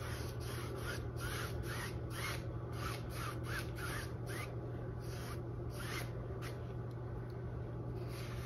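Large filbert paintbrush dragging damp acrylic paint across stretched canvas in quick back-and-forth strokes, about three a second, dying away about six seconds in. A low steady hum runs underneath.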